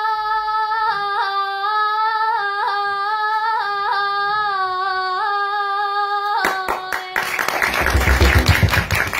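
A young girl singing unaccompanied in Kurdish, holding one long high note with small ornamental turns for about six seconds before breaking off. The audience then bursts into clapping, which grows louder toward the end.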